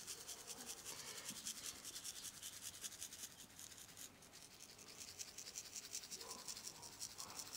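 Coarse salt sprinkled by hand onto raw sweetbreads and a wooden cutting board: a faint, dense run of tiny ticks as the grains land.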